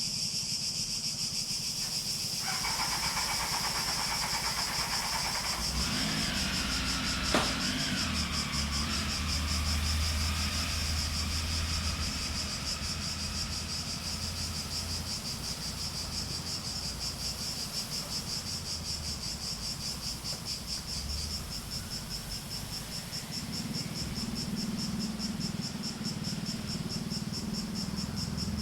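Cicadas singing in a steady, high, buzzing chorus with a fast pulsing texture. Between about six and twelve seconds in, a low rumble, like a passing vehicle, sits under the chorus, with a single sharp click partway through.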